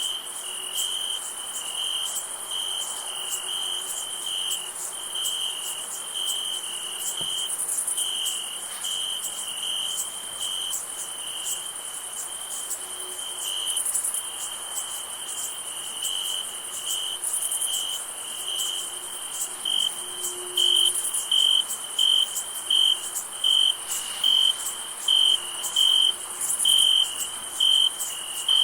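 Crickets chirping in a steady, rhythmic pulse over a continuous high insect trill. About two-thirds of the way in, one cricket grows louder and chirps more evenly, a little more than once a second.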